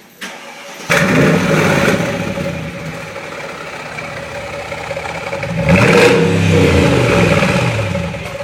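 Mercedes-Benz E500's V8 engine and exhaust revving: a sudden rise about a second in that eases back toward idle, then a second rev near the six-second mark.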